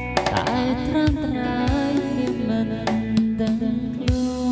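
Music with a lead line that bends up and down over regular drum hits.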